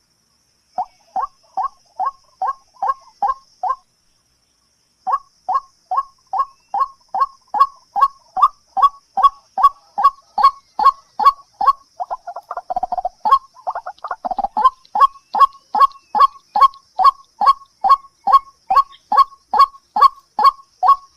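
A bird calling over and over in short, sharp calls, about three a second. The calls stop dead for about a second near the start, and a few lower, harsher calls break in about two-thirds of the way through.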